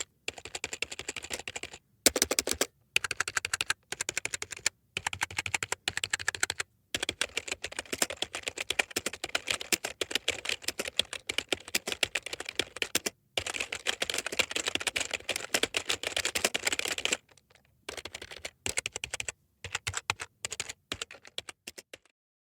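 Typing on a computer keyboard: fast runs of key clicks broken by short pauses, stopping shortly before the end.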